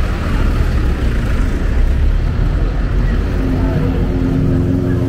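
City street traffic: a steady low rumble of passing vehicles. About three seconds in, one vehicle's engine hum joins, holding a steady pitch.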